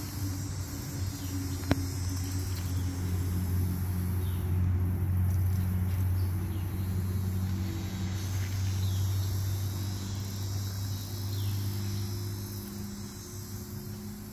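A low, steady engine drone with slowly shifting pitch. Insects chirr faintly and high in the background.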